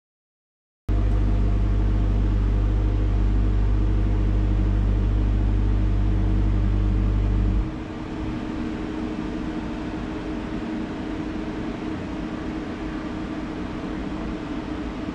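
FORTIS CNC router's gantry drive motors moving the spindle along the job outline during a framing dry run, with no cutting. A steady mechanical hum starts suddenly about a second in; about halfway through its deep hum drops away, leaving a quieter steady whir.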